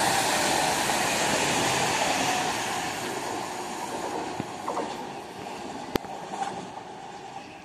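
Electric-locomotive-hauled passenger train running through the station at speed: a steady rush of wheels on rail and air from the passing coaches, fading as the train goes by. A single sharp click comes near six seconds in.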